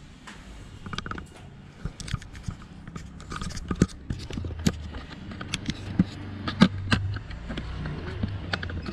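Scattered clicks, taps and scraping of handling noise as a handheld camera and hand move over a car's rear-seat trim and door inside the cabin, with a low steady hum coming in about halfway.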